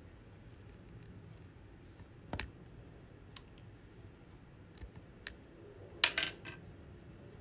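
Scattered small plastic clicks of a diamond-painting drill pen and round resin drills: one clear click about two and a half seconds in, a few faint ticks, then a quick cluster of clicks, the loudest, about six seconds in. A faint steady hum sits underneath.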